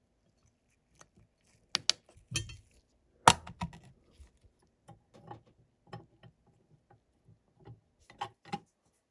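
Irregular clicks and taps of small hard parts being handled, two sharp clicks close together a couple of seconds in and the loudest click a little later.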